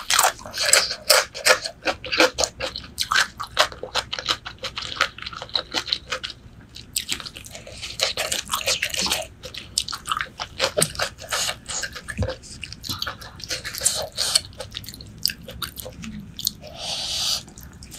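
Close-miked chewing of braised pork leg: fast, wet smacking and crunching mouth clicks, pausing briefly a third of the way in, with a short hiss near the end.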